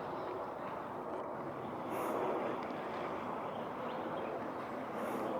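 Steady, even rumble of distant engine noise, with a slight swell about two seconds in.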